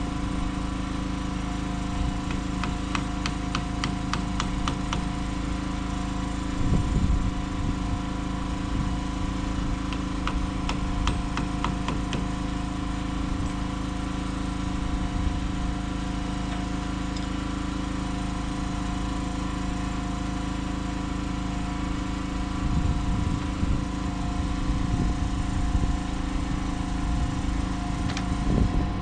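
A motor runs with a steady, even drone. Over it come two runs of quick sharp tapping, about five taps a second, a few seconds in and again about ten seconds in.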